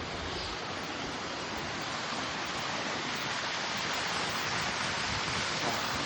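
Steep waterfall on a hill stream, water falling and splashing in an even, steady rush.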